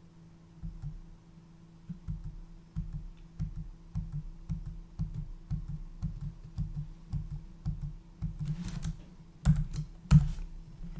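Computer keyboard keys tapped in an irregular run of light clicks, with a few harder presses near the end, over a faint steady low hum.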